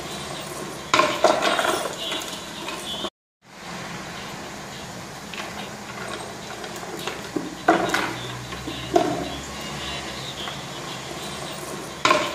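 A wooden crate clattering and scraping on pavement as a Kangal dog bites, lifts and drags it. Sharp knocks come about a second in, around eight and nine seconds in, and again near the end. The sound cuts out completely for a moment about three seconds in.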